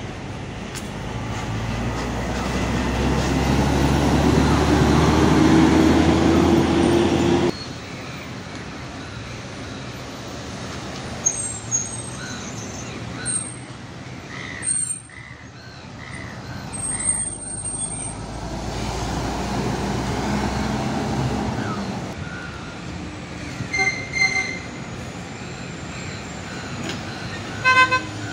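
A city bus's engine running loud close by and rising in pitch as it accelerates away, cutting off suddenly after about seven seconds. Then busy road traffic with vehicles passing and a few short horn beeps, two quick ones near the end.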